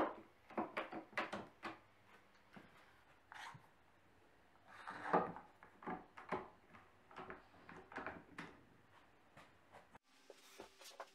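One-handed bar clamps being squeezed tight against a plywood corner jig and boards: a run of irregular clicks and small wooden knocks, the sharpest right at the start and a busier cluster about five seconds in.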